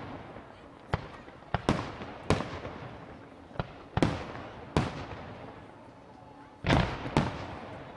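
Aerial firework shells bursting: a string of sharp bangs, each trailing off in a rolling echo, about eight in all, irregularly spaced. A heavier, longer blast comes near the end.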